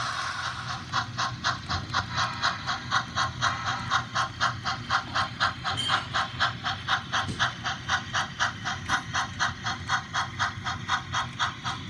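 Model steam locomotive's onboard sound chuffing in an even rhythm, about four chuffs a second, over a steady hiss as the train runs.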